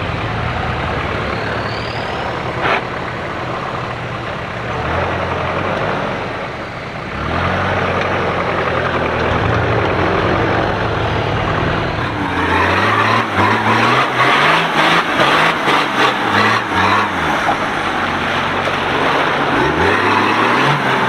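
Off-road 4x4 engines working as the vehicles crawl through mud and ruts, the revs rising and falling several times. The rev surges come more often and louder in the second half.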